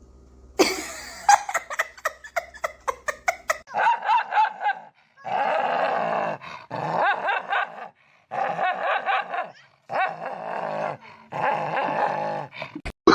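Dog making a series of drawn-out, wavering growly whines, about six of them, each a second or so long. Before them comes a quick run of sharp clicks.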